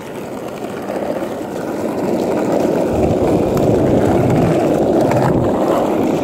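Skateboard wheels rolling over rough, cracked asphalt: a steady rumble that grows louder over the first two or three seconds, then holds.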